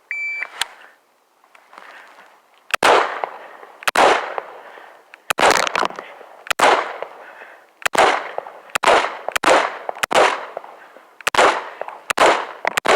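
Shot timer beeps once at the start, then after about three seconds a string of about a dozen gunshots follows, fired roughly a second apart, some in quick pairs, each crack ringing out briefly.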